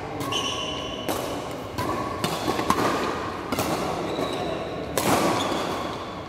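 Badminton rackets hitting a shuttlecock during a doubles rally: a series of sharp smacks about a second apart, each with a short echo from a large indoor hall.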